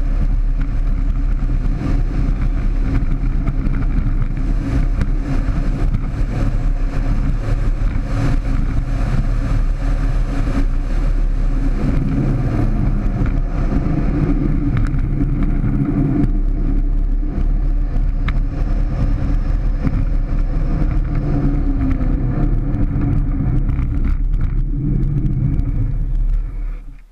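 Unpowered soapbox cart rolling fast on its small wheels down a rough asphalt lane: a loud, steady rumble with rattling from the chassis. It dies away abruptly near the end as the cart comes to a stop.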